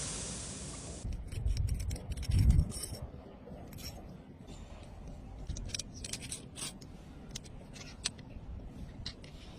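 A hiss dying away within the first second, then two low thuds and an irregular string of small sharp clicks and scrapes, like hand tools being handled.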